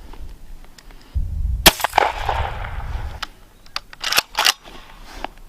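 A single 12-gauge shotgun shot about a second and a half in, the loudest sound, with its echo trailing off over the next second or so, followed by several shorter sharp clicks and knocks.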